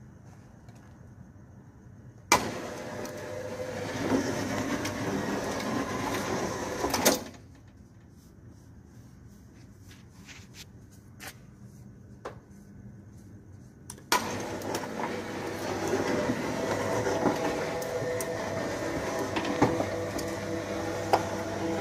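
Electric roller shutter door motor running while the shutter's steel slats rattle as it rolls. It starts sharply about two seconds in, stops about seven seconds in, and starts again about fourteen seconds in.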